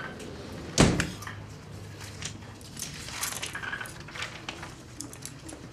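A single sharp knock on a desk about a second in, then faint scattered clicks and rustling.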